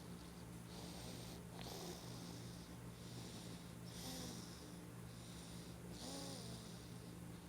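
Snoring in sleep: short, hissy breaths about once a second, a few carrying a brief whistling squeak, over a steady low hum.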